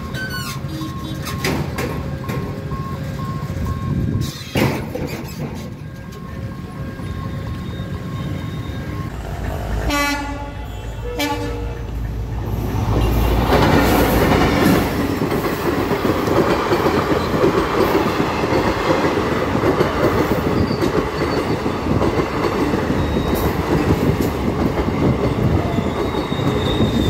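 Diesel locomotive sounds its horn, a single blast of about a second and a half near the ten-second mark. It then passes close by from about 13 seconds in, a loud rumble followed by passenger coaches rolling over the rails with a steady clatter.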